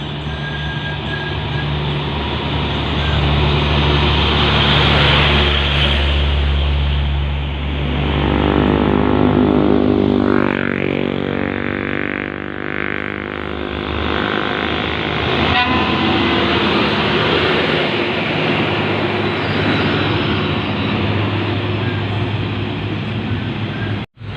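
Heavy truck diesel engine running hard under load, a steady low drone whose pitch rises and then falls about midway through.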